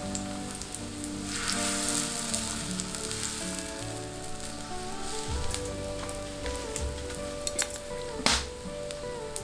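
Pancake batter sizzling in hot oil in a wide iron pan, a steady hiss that is strongest about two seconds in, with a sharp clatter a little after eight seconds in. Soft background music plays underneath.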